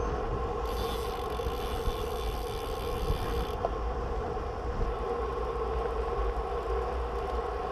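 Wind rushing over the microphone and the running noise of a road bike on asphalt, with a low rumble and a steady hum. A brighter hiss joins about half a second in and cuts off sharply a few seconds later.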